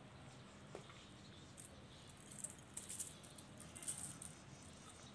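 Silver sequins rattling out of a small jar and pattering onto slime, in a few short spells.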